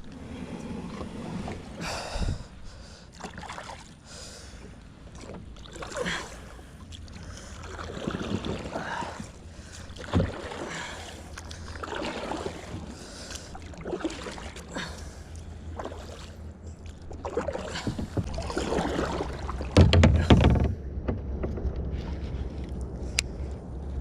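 Kayak paddle strokes dipping and pulling through water, a swish about every two seconds, over a low rumble of wind on the microphone, with one louder burst about twenty seconds in.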